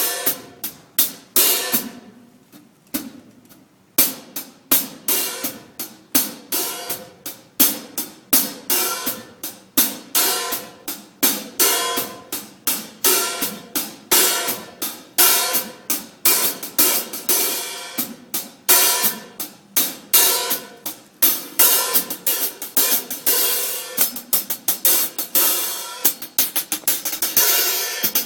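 A drum kit being played at a sound check, with hi-hat and cymbals to the fore over the drums. It starts with a few separate hits and a short pause, then settles into a steady groove that grows busier and denser toward the end.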